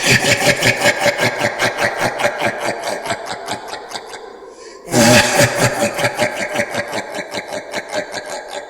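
A rapid mechanical-sounding rattle, about six or seven strokes a second, that starts abruptly, fades, then starts again loudly about five seconds in and fades once more.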